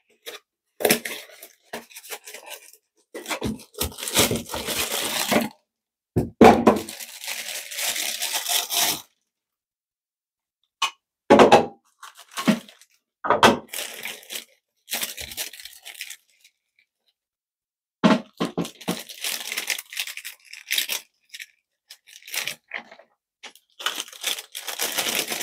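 Thin packaging wrap being rustled, crinkled and torn off plastic parts in irregular bursts with short pauses, with a few sharp knocks of the hard plastic pieces.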